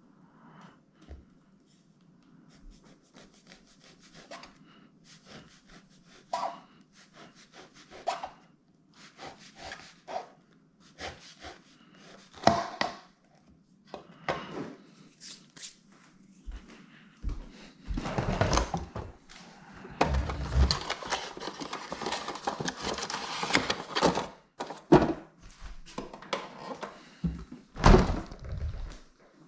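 Chef's knife sawing through a bagel on a plastic cutting board, with scraping strokes and a few knocks. Later there is a longer stretch of louder handling noise and knocks, and a loud thump near the end from a stainless steel refrigerator door.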